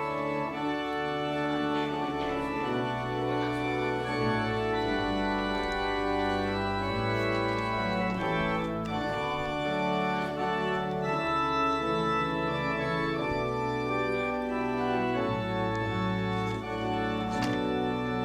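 Church organ playing slow, sustained chords over long-held bass pedal notes.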